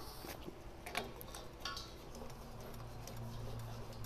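Faint scattered clicks and taps of a propane regulator's metal fitting being handled and screwed onto a propane tank's valve, with a faint low hum near the end.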